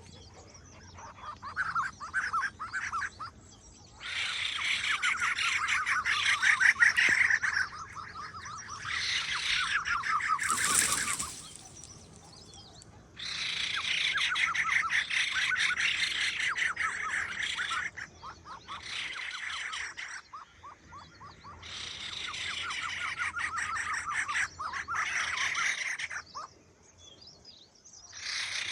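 Birds singing in long runs of rapid trilling, each several seconds long, with short pauses between them.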